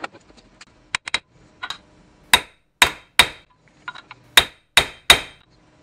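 Hammer tapping on a socket set against a universal-joint bearing cap held in a bench vise, driving the cap down so its snap ring will seat. A few light clinks, then six sharper metallic strikes with a ringing tone, in two groups of three.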